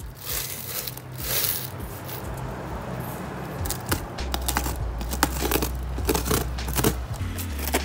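Packing tape on a cardboard box being slit and torn open with a hand tool: a run of scratchy tearing and crinkling with many small clicks and scrapes against the cardboard. A steady low hum comes in about four seconds in.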